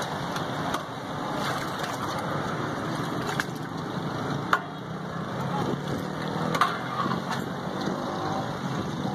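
Chunky watermelon juice sloshing as it is stirred and scooped with a steel ladle in a large steel pot, with several sharp clinks of the ladle and glass mugs against the metal, over steady street noise.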